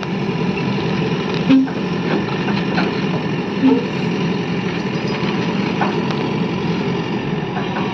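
Diesel engine of a JCB excavator running steadily as it works. Two short louder tones stand out, about one and a half seconds in and again about two seconds later.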